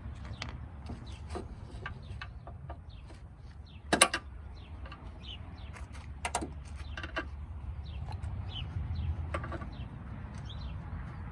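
Scattered metallic clinks and knocks of hand tools working on a rusted bolt on a steel mower deck, with one loud clank about four seconds in. Birds chirp in the background.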